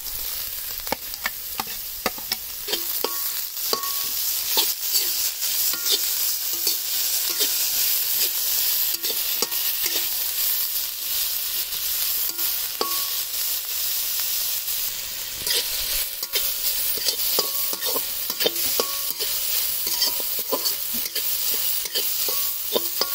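Chopped capsicum, carrot and beans stir-frying in oil in a steel kadai. A steady sizzling hiss runs under frequent scrapes and clicks of a metal spatula against the pan.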